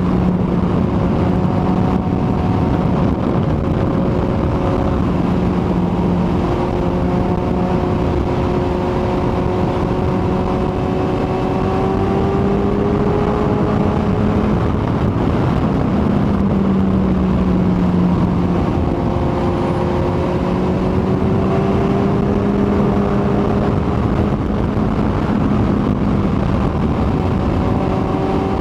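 Kawasaki ZX-14R's inline-four engine running at a steady cruise, its pitch easing up and down slightly, under a heavy rush of wind noise.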